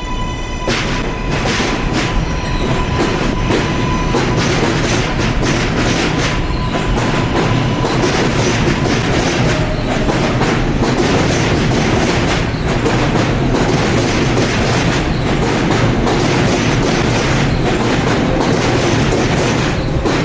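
R143 subway train running past, its traction-motor whine holding one high tone for the first few seconds before fading. Steady wheel rumble and rapid clickety-clack over the rail joints and switches carry on throughout.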